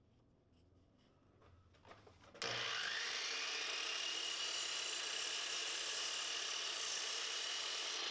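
Electric power saw switched on about two and a half seconds in. Its motor spins up with a rising whine and then runs steadily at speed, preceded by a few faint knocks of wood being set in place.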